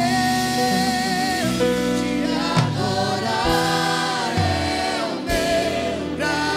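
Choir of young worship singers singing a Portuguese gospel worship song through microphones and a PA, with long held notes and a strong lead voice. An electronic keyboard plays the accompaniment.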